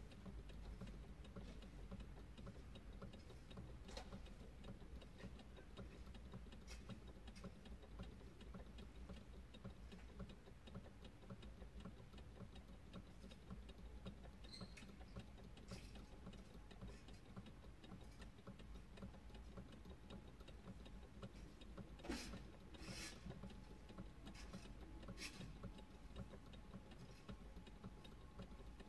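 Faint, steady ticking over a low rumble, inside a car, with a few sharper clicks a little over two-thirds of the way in.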